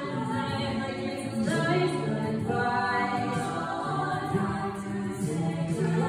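Mixed-voice a cappella vocal ensemble singing sustained chords over a low bass line, the harmony shifting about every second.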